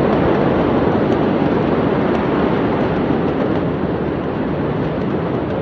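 Steady, loud rushing noise of wind buffeting a phone's microphone, with no distinct events.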